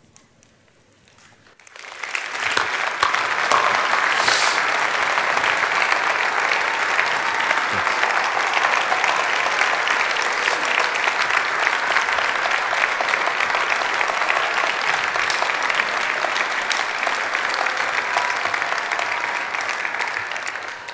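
Congregation applauding steadily, the clapping starting about two seconds in after a short hush and running on to the end.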